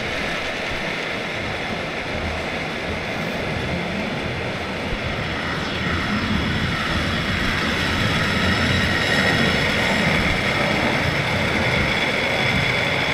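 An aircraft passing, its engine a steady rush with a high whine. It grows louder about six seconds in.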